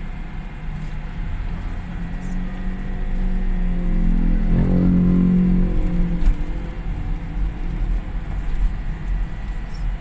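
Steady low road rumble inside a car moving slowly over a rough dirt road. About four to five seconds in, an engine swells and then fades as a motor scooter passes close by.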